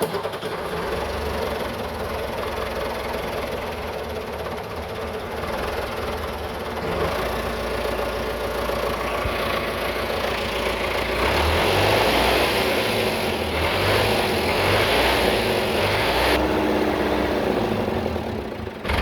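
Case IH 7610 tractor's diesel engine running just after an ether-assisted start. The old engine was hard to start and needed ether to fire. It gets louder about halfway through.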